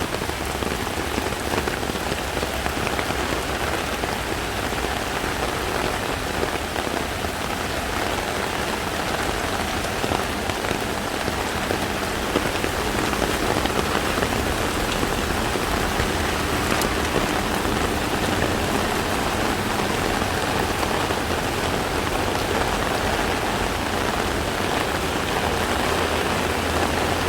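Heavy tropical rain pouring down steadily, a dense, even hiss of rain hitting the ground and standing water.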